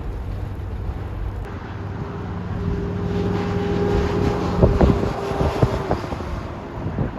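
High wind of a snow squall buffeting the microphone as a steady low rumble, with a droning tone that comes in about two seconds in and fades near six seconds, and a few sharp knocks from the gusts around the middle.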